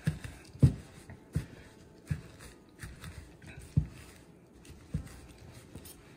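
A metal pastry blender cutting cold butter pieces into an oat, flour and brown sugar crumble topping in a plastic bowl, making a dull knock on each downward stroke, roughly one a second.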